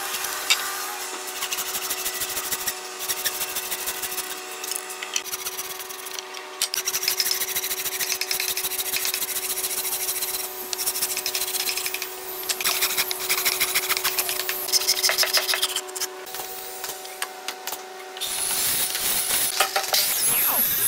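A long flat metal file rasping back and forth across a hardwood joint piece in quick repeated strokes, with short pauses between runs, over a steady hum. About eighteen seconds in, a mitre saw starts running.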